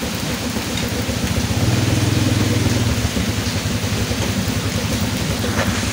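Motorcycle engine idling with a fast, even pulse that swells a little between about one and a half and three seconds in, over steady heavy rain.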